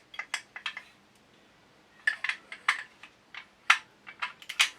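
Small steel parts of a Sjögren inertia shotgun's action clicking and clinking as they are handled and fitted by hand. A few sharp clicks come in the first second, then a pause, then a scattered run of clicks over the last three seconds.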